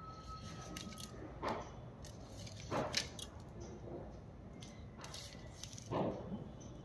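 A few soft knocks and rustles of objects being handled and set down on the floor, the loudest about three seconds in and again near six seconds, over a low room background.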